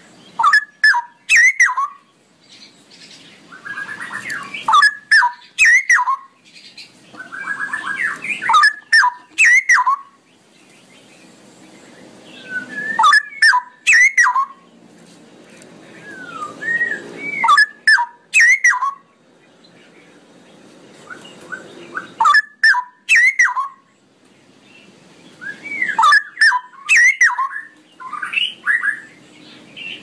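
Straw-headed bulbul (cucak rowo) singing: loud, bubbling whistled phrases that repeat about every four seconds, with quieter warbling between them.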